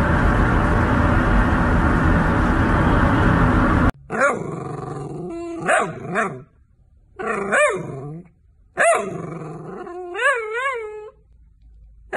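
A steady rushing noise that cuts off suddenly about four seconds in. Then a long-haired dachshund vocalises in a run of drawn-out, howl-like calls that rise and fall in pitch. The last call warbles up and down several times.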